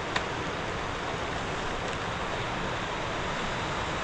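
Steady hiss of rain falling with the rush of river water, one even wash of noise, and a single short click just after the start.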